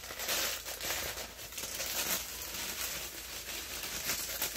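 Saltine crackers being crushed by hand inside their plastic sleeve: the wrapper crinkles and the crackers crunch in an irregular run of small cracks.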